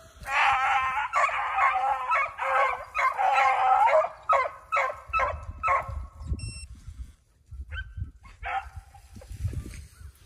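Beagles baying on a rabbit's trail. The calls come thick and loud for the first four seconds, then break into separate shorter barks that thin out, with one more bay near the end.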